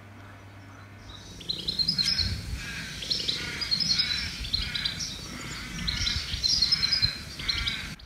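A male koala bellowing: a rhythmic run of grunty, squealy, piggy calls that starts about a second and a half in and stops just before the end, with birds calling as well.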